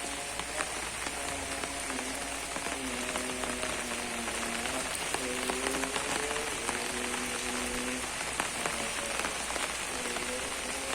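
Steady rain falling on surfaces, with individual drops ticking sharply through it. Under the rain a faint, slow melody of long held notes comes and goes.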